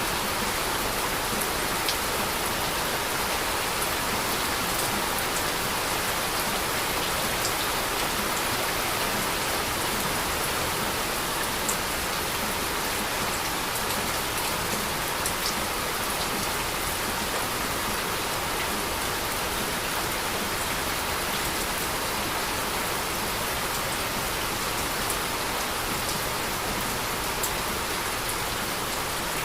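Heavy, steady rain falling, a dense even hiss with scattered faint drop ticks.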